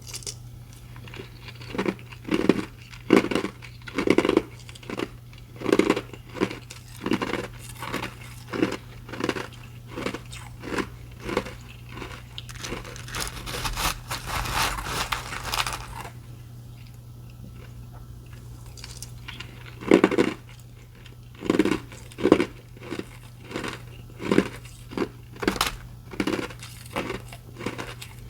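Ice being bitten and chewed close to the microphone: hard crunches about two a second, a denser crackling stretch past the middle, then a short lull before the crunching starts again.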